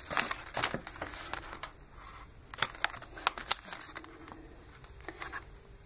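Thick collaged pages of an altered art book being turned and handled: paper rustling and crinkling, with a scatter of short taps and clicks.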